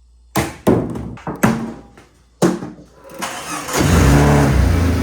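Several loud thumps, then about three seconds in a Jeep Cherokee XJ's freshly swapped-in engine cranks briefly, catches and runs steadily on its first start.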